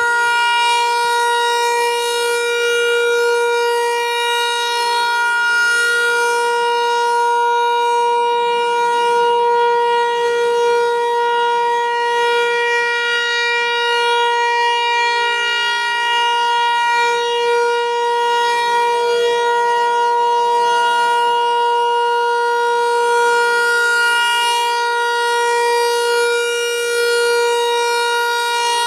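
Federal Signal 508-128 outdoor warning siren sounding a test, holding one steady pitch with many overtones. Its loudness swells slightly.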